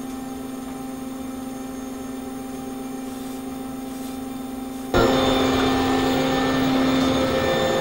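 Cortini L300 milling machine's spindle running with a steady hum while its cutter takes a straight cut in a piece of aluminium. About five seconds in, the sound abruptly gets louder and noisier.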